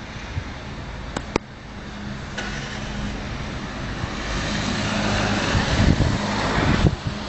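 A motor vehicle running: a steady low engine hum, with two light clicks about a second in. A rushing noise swells over several seconds to its loudest near the end, then drops off suddenly.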